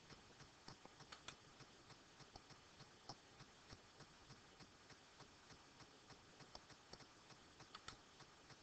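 Faint, irregular clicking and tapping of a computer keyboard and mouse, a few clicks a second, over a near-silent room.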